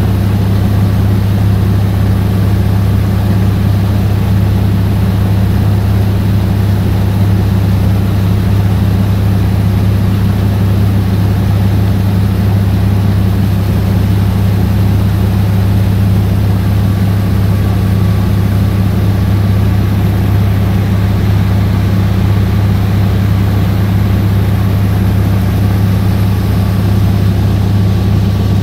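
Small fibreglass passenger boat's engine running steadily under way, a loud constant low hum that does not change in pitch.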